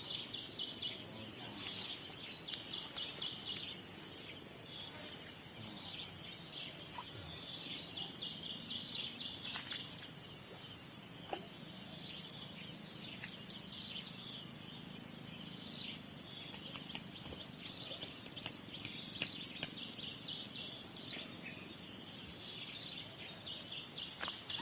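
Insects calling: a steady high-pitched drone with a faster, pulsing chirp beneath it, and a few faint clicks.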